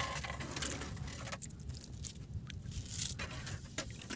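Scraping and crackling as a thin anchor rope is handled and pulled by hand over the side of an outrigger fishing boat, with scattered sharp clicks over a steady low rumble.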